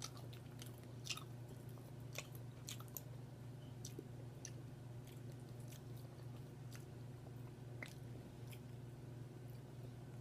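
A person chewing food close to the microphone, with sharp wet mouth clicks that are thicker in the first three seconds, over a steady low hum.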